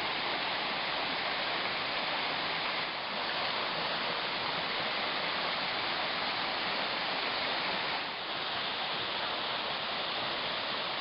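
Kanabiki Waterfall pouring down: a steady rushing of falling water, dipping slightly twice, about three and eight seconds in.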